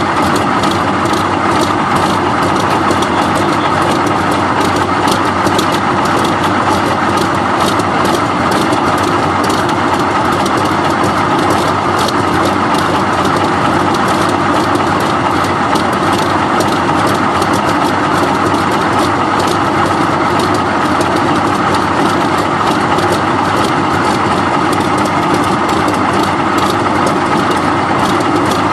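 Soviet T-34 tank's V-2 V12 diesel engine idling steadily and loudly.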